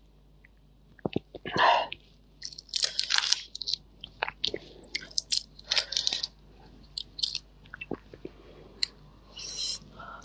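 A person chewing and biting into shrimp: irregular wet mouth clicks, smacks and crunches.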